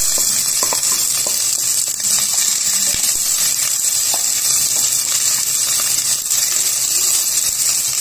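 Chopped onion sizzling steadily in hot olive oil in a stainless steel pot as it is sautéed and stirred with a wooden spoon, with a few light clicks.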